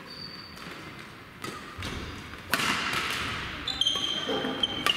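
Badminton rally in a gym hall: about three sharp racket strikes on the shuttlecock, the last two loudest, each with a short echo, and sneaker soles squeaking on the court floor at the start and again near the end.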